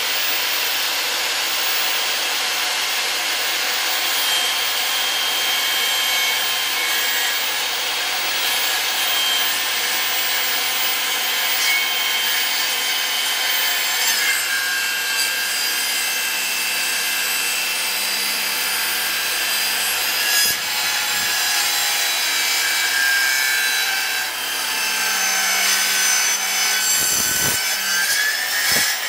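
Handheld circular saw running steadily and cutting through a timber pergola brace along a 45-degree line: a steady high motor whine over the sound of the blade in the wood, with the whine rising near the end.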